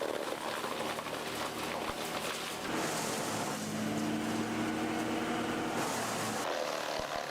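Engine of a large wood-chipping machine running steadily, with a steady engine hum that comes up about three seconds in and drops away shortly before the end.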